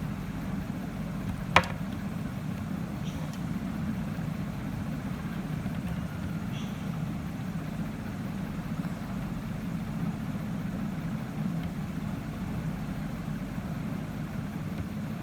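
Steady low background hum, with one sharp click about a second and a half in.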